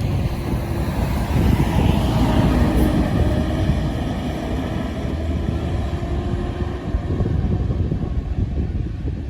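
Bus going by: a loud, low rumble of engine and road noise with wind buffeting the microphone.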